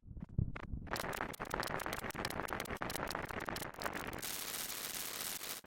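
Sound effect: a few low thumps, then rapid crackling clicks that thicken into a steady loud static hiss about four seconds in.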